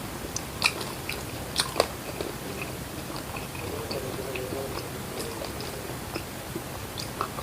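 A person eating spicy stir-fried catfish: close chewing and biting, with a few sharp crunching clicks in the first two seconds.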